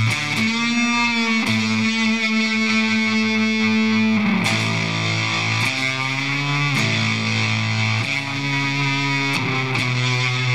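Stratocaster electric guitar played through a handmade Zzoyd Shrimp Pistol Stun germanium fuzz pedal with its fuzz knob at mid position. It gives sustained, fuzz-distorted notes and chords, each held for one to three seconds before the next.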